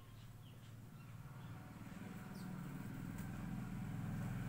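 A low mechanical hum growing gradually louder, with a few faint high chirps in the first half.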